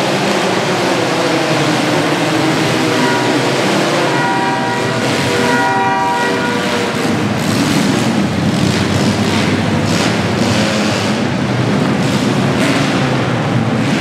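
Demolition derby compact cars' engines running and revving in an arena, with a steady horn sounding for about three seconds partway through.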